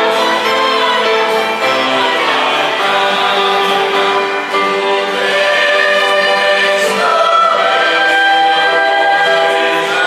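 Mixed choir singing in long held chords, accompanied by a chamber ensemble of violins, cello, keyboard and acoustic guitar.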